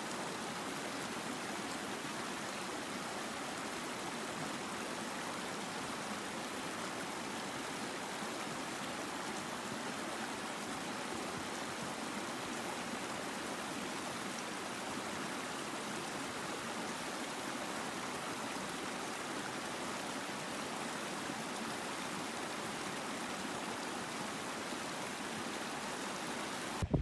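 Shallow mountain stream running over rocks: a steady, even rush of water.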